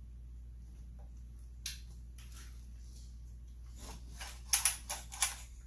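Sharp clicks and rattles of parts being handled on a chainsaw's recoil starter side: one click early, then a quick cluster of clicks past the middle, over a steady low hum.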